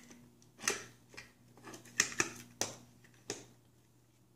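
A small toy fire truck clicking and knocking against a plastic high-chair tray as it is handled: several short, irregular knocks, the loudest about two seconds in.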